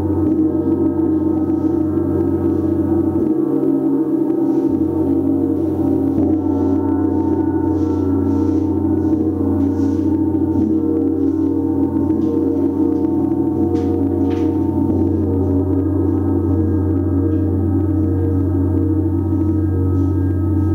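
Large planetary gong tuned to Jupiter, played continuously with a mallet in a gong bath: a dense, unbroken wash of many overlapping ringing tones at a steady loudness, kept going by soft repeated strokes.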